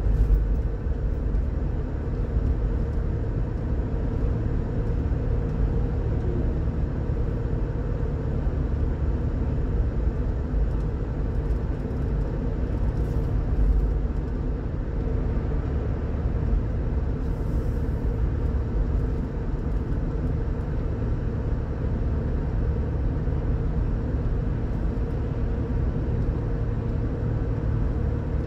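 Steady low rumble of a car driving at highway speed, tyre and engine noise heard from inside the cabin, swelling briefly about halfway through.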